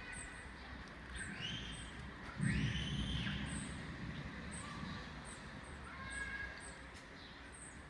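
A rumble of thunder breaks in suddenly about two and a half seconds in and fades over the next couple of seconds. Short high chirps repeat throughout, and a couple of arched higher calls come just before and with the rumble.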